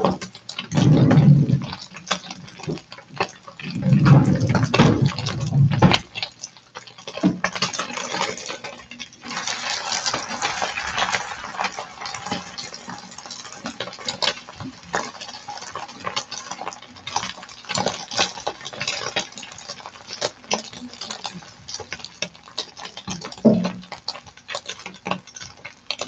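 Egg frying in oil in a pan, a steady sizzle, with clicks and scrapes of a spatula against the pan as the egg is turned. Two loud low rumbles come in the first six seconds.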